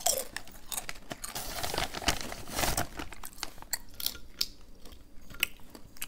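A person crunching and chewing crispy root-vegetable chips, with irregular sharp crackles that are densest between about one and three seconds in.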